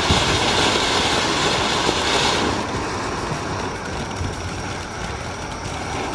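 Several ground fountain fireworks burning together with a steady loud hiss of spraying sparks; the hiss gets duller about two and a half seconds in.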